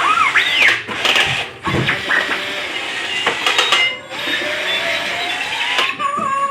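Star Wars R2-D2 toy robot whistling and chirping its electronic beeps, with quick up-and-down pitch swoops near the start and a long slowly rising whistle later, over the whirr of its small motor and a few clicks.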